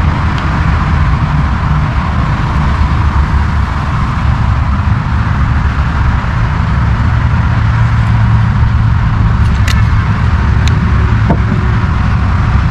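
Loud, steady low rumble with a hiss above it, with a few light clicks in the last few seconds.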